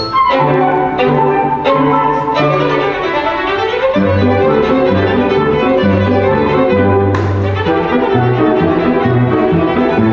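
Violin, flute, cello and piano playing a brisk light-classical tune, the cello moving in short bass notes under the melody, with a few sharp strikes near the start and again about seven seconds in.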